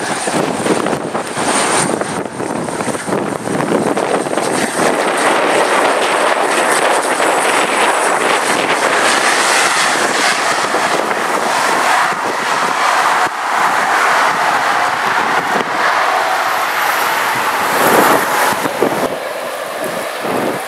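Single-engine turboprop airliner (Pilatus PC-12) landing and rolling out on the runway: a steady rush of propeller and engine noise, with a thin high turbine whine that fades away over the first several seconds.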